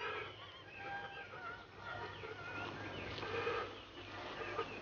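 A man sobbing and wailing in grief, his crying voice wavering and breaking.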